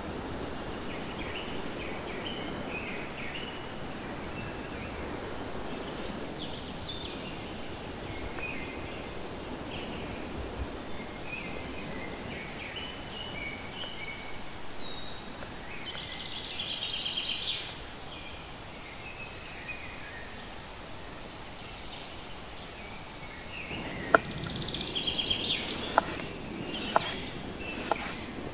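Open-air ambience with small birds chirping on and off, one louder rapid call a little past the middle. Near the end, a kitchen knife slicing potatoes on a wooden cutting board, a sharp knock with each cut, about one a second.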